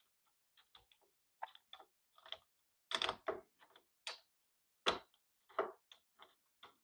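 Screwdriver working the mounting screws out of a doorknob, with scattered metal clicks and knocks from the loosened knob hardware. The two loudest knocks come about three and five seconds in.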